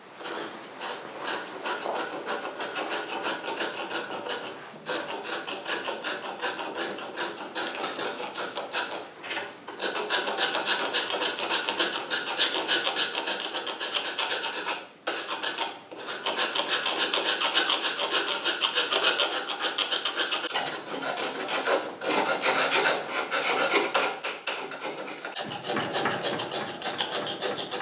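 Knife blade scraping blistered black paint and white corrosion off a Harley-Davidson Dyna Low Rider S aluminium lower fork leg. The paint is lifting where the metal has corroded beneath it. A continuous rapid rasping scrape of fine strokes, with a few brief pauses.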